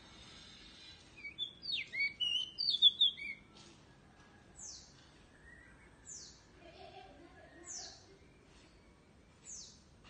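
Pied bushchat (decu) singing a short burst of varied, bright whistled notes, loudest about three seconds in; it is a young bird still learning its song. Through the rest, a thin high note falling in pitch repeats about every second and a half.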